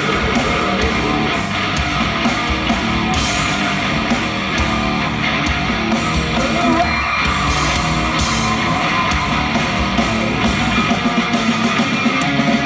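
Live heavy rock band playing a loud passage without lyrics, with guitars and drums.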